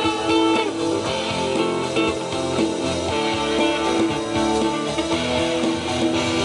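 Instrumental break in a live pop ballad: an electric guitar plays notes over a bass line, with no singing.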